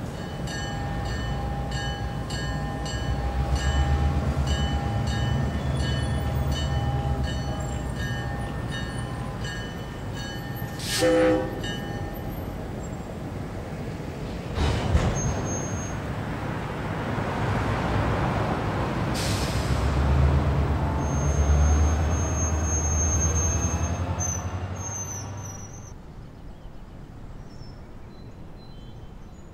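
A train rumbling past with several high steady tones over it, a short horn toot about eleven seconds in, then a second rumble that swells and fades away near the end.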